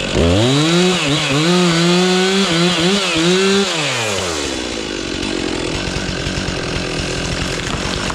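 Two-stroke chainsaw revved up to full throttle at the start and held there for about three and a half seconds, its pitch dipping and wavering, then dropping back to a steady idle about four seconds in.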